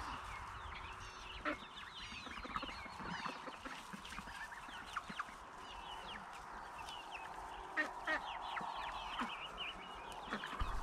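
A flock of young chickens clucking and cheeping, with many short calls overlapping.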